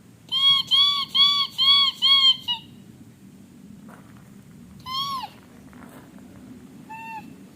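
A man imitating bird calls with his voice: a quick run of five clear, arching notes, then a single call about five seconds in, and another run beginning near the end.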